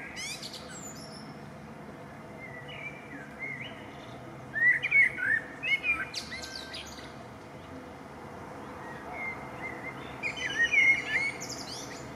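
A songbird singing short warbling phrases, each ending in a high twitter, with pauses of a few seconds between them; the loudest phrases come about halfway through and near the end.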